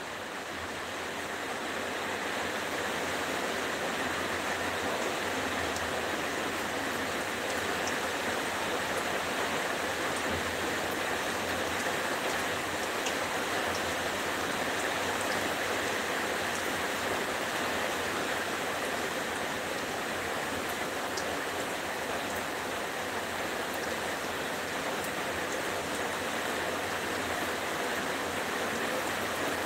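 Batter-coated cauliflower pieces deep-frying in hot oil in a kadai: a steady sizzle with scattered small crackles. It grows louder over the first couple of seconds as more pieces go into the oil, then holds level.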